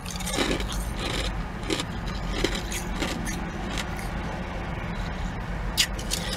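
Ice cubes crunched between the teeth close to the microphone: irregular crisp crunches, a few each second, over a low steady hum.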